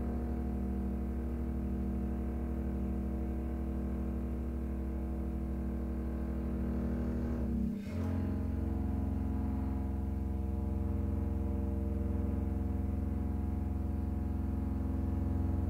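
Contemporary chamber music: long held low notes with a bowed double bass prominent. The sustained chord breaks off briefly and changes about eight seconds in.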